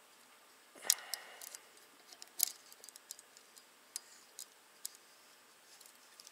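Light, scattered metal clicks and taps from a valve spring compressor and valve keepers on a 12-valve VR6 cylinder head as the keepers are set and the valve is seated. The sharpest click comes about a second in, with another at about two and a half seconds.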